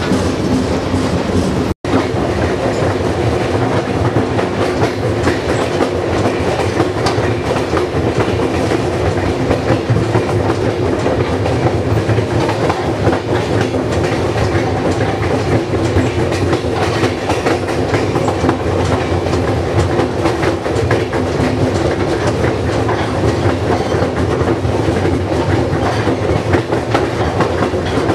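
Moving passenger train, wheels clattering and rumbling steadily along the rails with a low hum. The sound cuts out for an instant about two seconds in.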